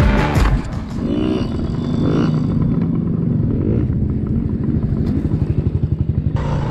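Yamaha PW50 minibike's small two-stroke engine running, its pitch rising and falling as it is revved. Near the end it settles into a steady pulsing run.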